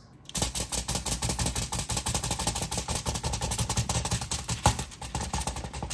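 Fork rapidly stabbing sweet potatoes on a foil-covered baking sheet: a fast, even run of sharp taps and clicks, with one louder knock near the end.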